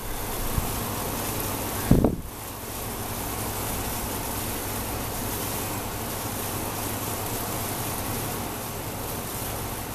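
Steady outdoor background hiss and low hum, with one short low thump about two seconds in.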